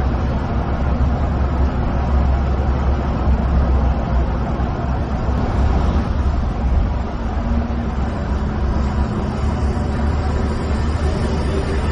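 Coach on the move, heard from inside the cabin: a steady engine drone and tyre roar on the road surface.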